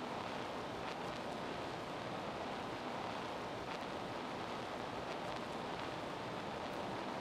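Steady rushing noise, even and unchanging, with a few faint ticks.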